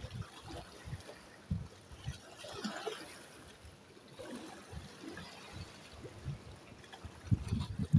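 Seawater sloshing and lapping against concrete blocks, washing in and out of the gaps, with irregular low thumps and a cluster of louder thumps near the end.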